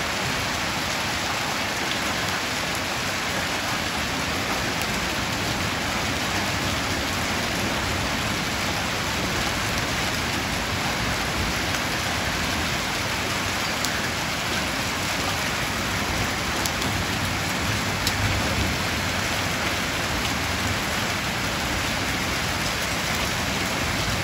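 Heavy rain mixed with hail falling steadily on hard ground, an even hiss with a few faint ticks.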